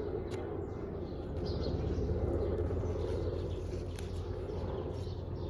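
Small birds chirping over a steady rushing noise.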